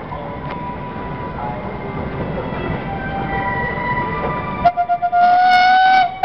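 Garrett steam roller running along the road, then a steam whistle sounds: a few quick toots about four and a half seconds in, a loud steady blast of about a second, and a short blast near the end.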